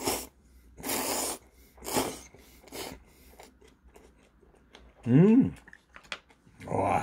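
Ramen noodles being slurped in a few quick, noisy slurps over the first three seconds, followed by chewing with small wet clicks. About five seconds in there is a short 'mmm' from the eater, rising in pitch.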